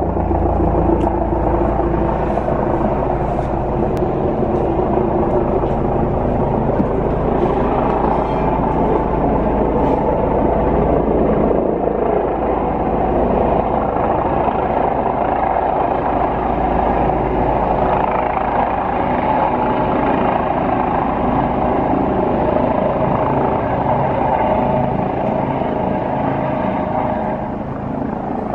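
A helicopter's rotor and engine running steadily as it comes in to land, easing slightly near the end.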